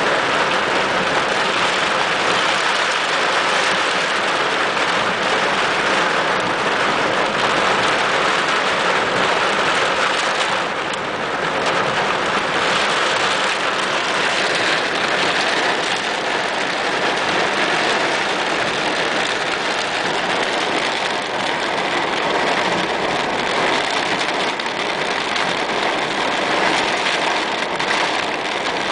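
Heavy rain falling on a car's roof and windows, heard from inside the car: a steady, dense hiss that eases a little about ten seconds in.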